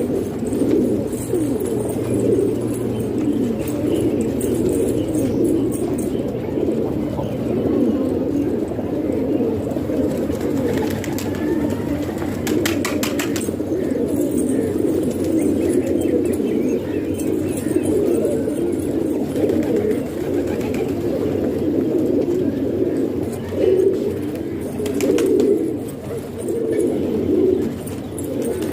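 Many domestic pigeons cooing at once, their low coos overlapping into a steady chorus. About halfway through comes a brief rattle of rapid clicks.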